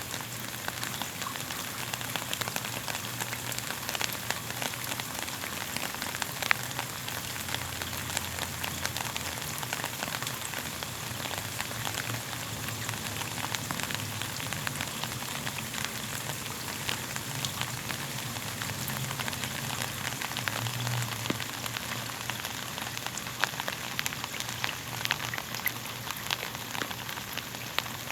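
Steady rain falling on a surface, a constant hiss dotted with many small individual drop hits.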